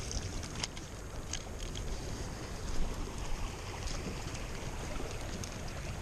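Shallow stream water running steadily, with wind on the microphone and a few light clicks from the spinning rod and reel being handled.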